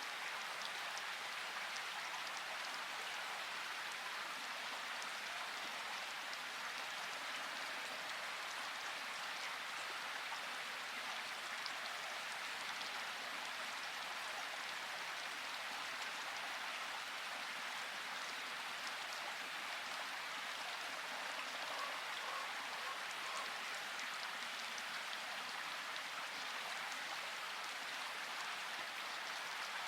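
Steady rain falling, an even, unbroken patter of drops with no let-up.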